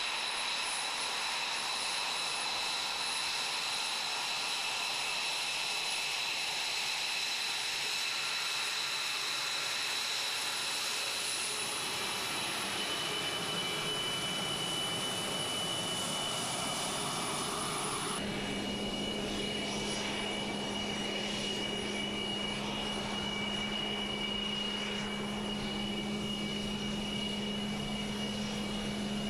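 Lockheed Martin F-22 Raptor's twin Pratt & Whitney F119 turbofan engines running at taxi power: a steady jet rush with high-pitched turbine whine. About two-thirds of the way in the sound changes abruptly to another steady jet whine with a low drone under it.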